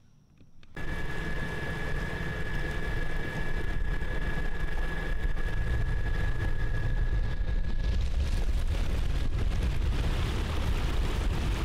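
Outboard motor running with the jon boat underway at speed, water rushing along the hull, with a steady high whine over the engine noise. It cuts in under a second in.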